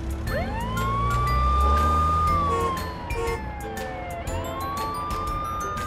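Police car siren wailing: two slow cycles, each rising to a held high pitch and gliding back down, the second starting about four seconds in. Background music and a low rumble play underneath.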